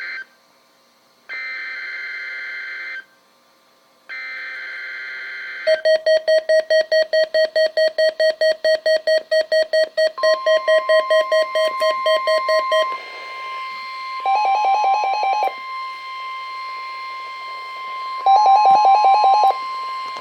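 Weather radio Required Weekly Test signal: three short bursts of buzzing SAME digital header data, then rapid electronic beeping at about three beeps a second. From about ten seconds in, a steady warning alarm tone joins it and holds to the end, with two more short spells of higher beeping near the middle and near the end.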